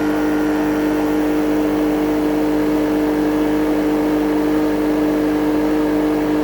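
Refrigerant recovery machine's compressor running in self-purge mode, a loud, steady hum.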